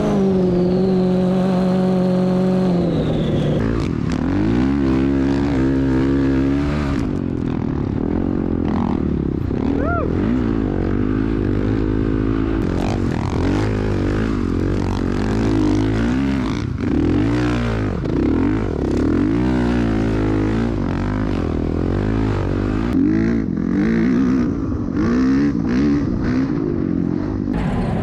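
Honda CRF450R dirt bike's single-cylinder four-stroke engine revving hard under load up a sand dune, its pitch rising and falling with the throttle and gear changes. The revs fall away over the first few seconds, with a sharp rev spike about ten seconds in.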